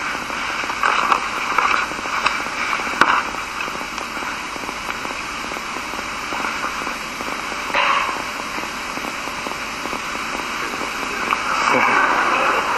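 Steady hiss and crackle of an old lecture recording. A few faint, brief sounds show through it here and there, the loudest near the end.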